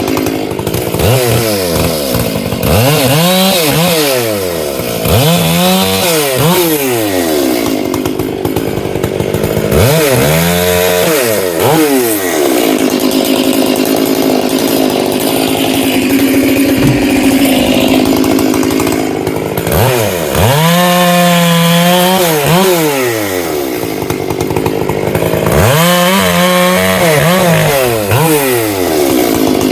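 Stihl MS 461 two-stroke chainsaw bucking firewood, its engine revving up and falling back again and again as it goes in and out of cuts. It runs an old hand-filed full-chisel chain and is cutting fast.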